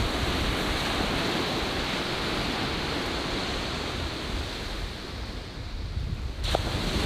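Ocean surf washing onto a sandy beach, with wind rumbling on the microphone. The wash eases a little about five seconds in and swells again near the end.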